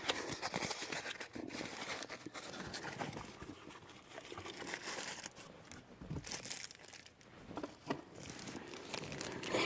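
Packaging crinkling and rustling as a new shift knob is unwrapped by hand, with a continuous run of short scratchy crackles and small clicks.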